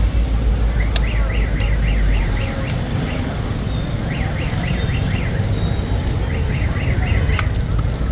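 Busy street-stall din: a steady low rumble, with three short runs of quick, repeated high chirps, like an electronic alarm, and a few sharp metallic clicks.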